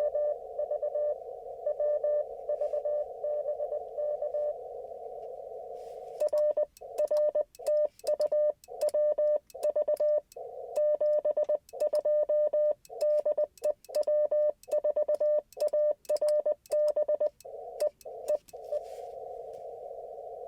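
Morse code on an Icom IC-705 transceiver. For the first few seconds a received CW signal beeps through a narrow band of receiver hiss. From about six seconds the louder sidetone of the operator's own keyed Morse sends a string of dits and dahs, with the hiss cutting out between them, and the hiss alone returns near the end.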